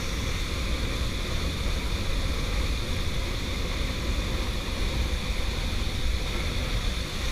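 Waterfall's falling water rushing in a steady, unbroken wash of noise.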